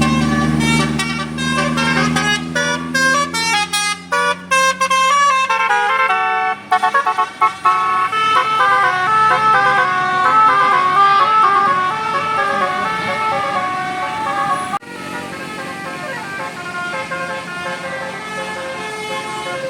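Indonesian bus telolet horn (Basuri multi-tone air horn) playing a tune: quick stepped notes at first, then longer held notes. The level drops suddenly about 15 seconds in, and a quieter horn tune carries on.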